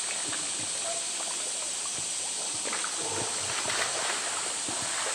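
Water splashing and lapping as a polar bear swims and pushes a floating blue plastic toy, over a steady rush of water; the splashing grows busier about three seconds in.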